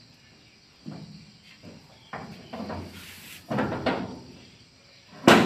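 Sheet-metal feed-chute cover of a paddy thresher being handled: scattered knocks and scrapes, then one loud metal bang just before the end.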